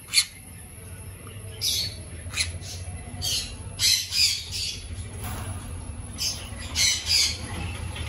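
Small pet parrots giving repeated short, harsh squawks at irregular intervals, about a dozen calls in all.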